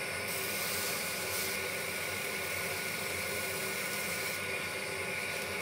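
A steady hiss with a faint hum underneath, holding at one level; its upper, airy part swells louder twice.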